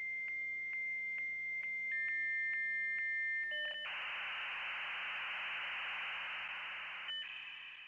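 Dial-up modem handshake. A steady high tone, clicking about twice a second, is joined by a second tone. About halfway through it gives way to a loud hiss, which breaks off near the end into a brief tone that fades out.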